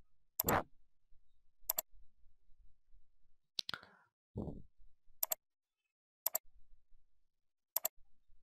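Computer mouse clicking: about six sharp single clicks, one every one to two seconds. A short low sound comes about four and a half seconds in.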